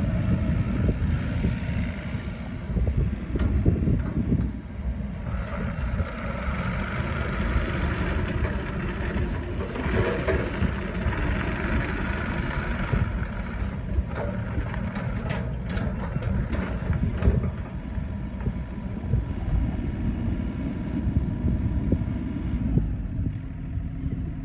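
Takeuchi TB225 mini excavator working: its diesel engine runs steadily while it tracks, slews and raises its boom and arm. A higher hiss from the hydraulics rises in the middle, and a few sharp clanks come a little past halfway.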